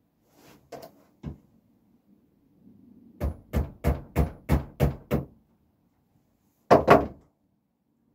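PVA glue bottle knocked down against a hard work surface to clear its blocked nozzle. A few light knocks, then a quick run of about seven at roughly three a second, then two loud knocks close together near the end.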